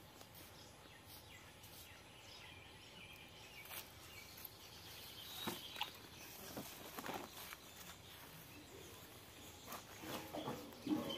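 Goat hide being pulled off a hanging carcass by hand: faint, irregular tearing and crackling, with a few louder cracks near the middle and near the end, over a quiet outdoor background.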